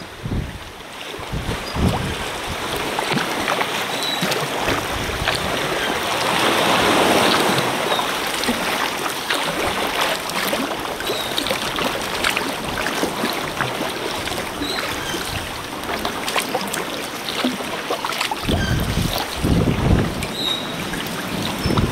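Sea water splashing and lapping around a sea kayak, with many small splashes and drips. Wind starts buffeting the microphone near the end.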